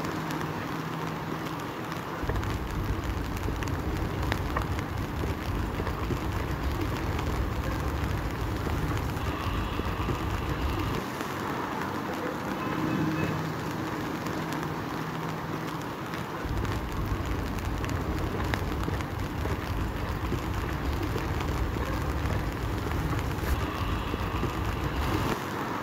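Wind buffeting the microphone in two long gusts, over a steady wash of rain and street traffic.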